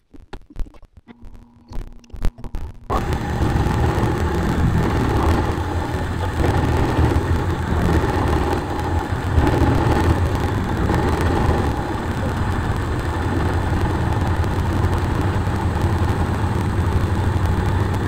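A few clicks and knocks of handling, then about three seconds in a vertical milling machine starts and runs steadily, with a low hum and a faint steady whine, its spindle turning a cutter against an aluminum workpiece clamped in a vise.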